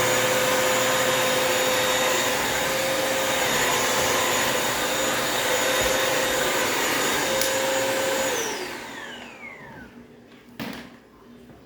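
Bissell mopping vacuum cleaner's motor running steadily with a high whine, then switched off about eight seconds in, its pitch falling as it spins down over a couple of seconds. A short knock near the end.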